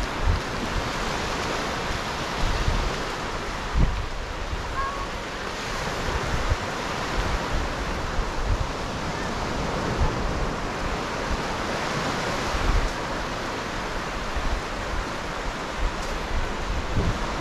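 North Sea surf breaking and washing up the flat sand in a steady rush that swells now and then as waves come in, with wind gusting on the microphone in irregular low thumps.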